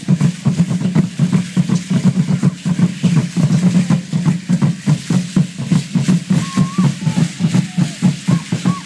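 Large upright drums beaten in a fast, steady dance rhythm of about four beats a second, with the shaking rattle of the dancers' ankle rattles over it. This is the drumming for Aztec (Mexica) ceremonial dance.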